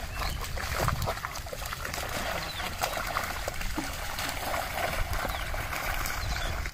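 Water streaming and dripping from a bamboo-lever square lift net as it is raised out of the water, with fish flapping and splashing in the sagging middle of the net.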